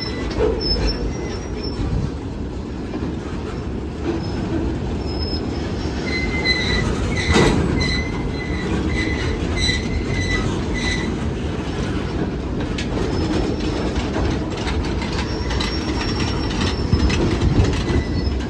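Freight cars rolling past on the rails, with wheels clicking over the joints and squealing in a pulsing tone. A sharp metallic clank comes about seven seconds in.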